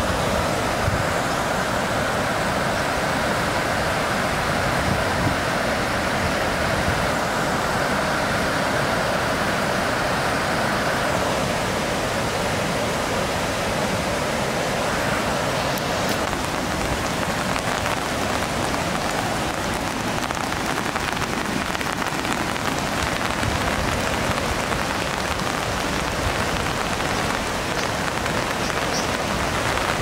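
Steady rushing of the Hagoromo waterfall mixed with falling rain, an even wash of water noise that does not change.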